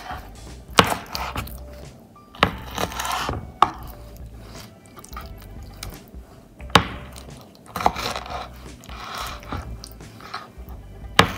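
Kitchen work: about six sharp knocks spread irregularly, with scraping and handling noise between them.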